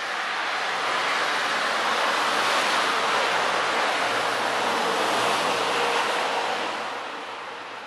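A car passing on a wet, slushy road: tyre hiss swells, holds for several seconds and fades away as it goes by.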